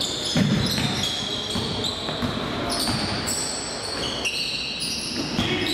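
Game sounds of indoor basketball on a wooden gym floor: frequent short high-pitched sneaker squeaks and the thuds of the ball bouncing, with one heavier thud about half a second in.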